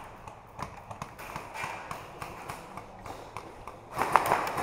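Light taps and shuffling like footsteps and gear being handled, with a louder clattering burst near the end.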